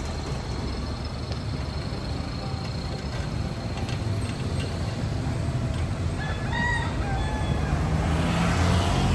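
Engines of a slow convoy of small trucks and pickups passing. They make a low rumble that grows louder near the end as a truck comes close. A short, high-pitched call sounds about two-thirds of the way through.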